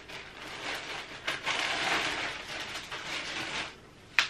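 Plastic packaging bag rustling as a knit sweater is pulled out of it and shaken open, with a sharp click near the end.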